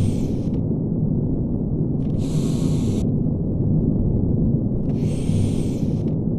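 Steady low rumble of an arc furnace plant in operation. About every three seconds a hiss of air lasting about a second comes and goes.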